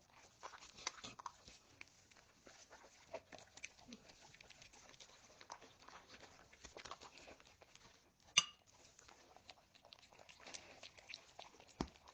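A dog eating: faint, irregular small crunches, clicks and mouth noises of chewing, with one sharper click about eight seconds in.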